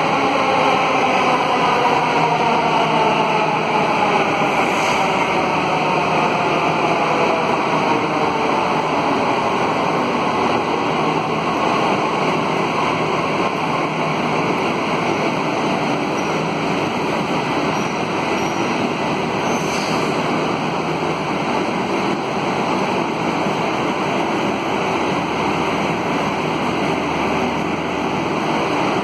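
Delhi Metro electric train pulling into the station: a falling whine over the first several seconds as it slows to a stop. Then steady rushing platform and train noise while it stands.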